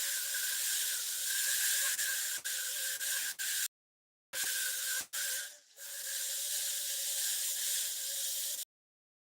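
Pressure-washer pump spraying a high-pressure water jet: a steady hiss with a constant motor whine in it. It breaks off a few times, twice dropping abruptly into complete silence for about half a second.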